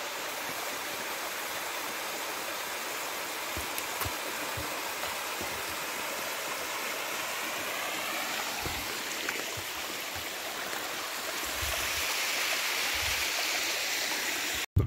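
Small mountain stream cascading over rock ledges: a steady rush of running water, a little louder in the last few seconds, that cuts off suddenly just before the end.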